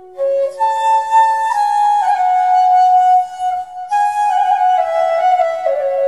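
Background music: a flute playing a slow melody of held notes that step up and down.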